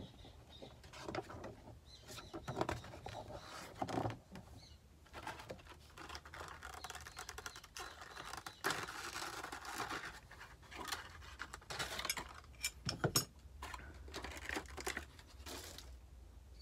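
Hands handling a clear plastic blister tray and small plastic model parts: scattered light crinkling, clicks and taps, faint.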